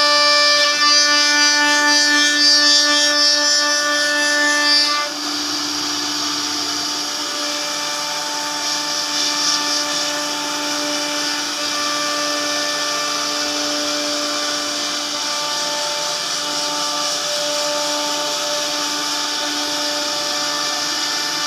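CNC router spindle running with a steady, high whine while cutting WPC board, with a hiss from the cutting. The sound shifts and gets slightly quieter about five seconds in, then runs on evenly.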